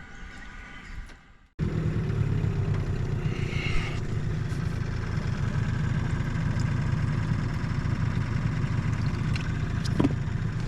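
Boat's outboard motor running steadily at a constant speed, starting abruptly about a second and a half in after quieter background, with a single sharp knock near the end.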